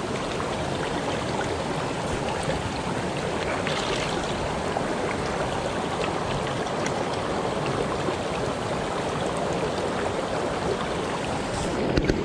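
Small mountain brook running over rocks: a steady, even rush of water close by.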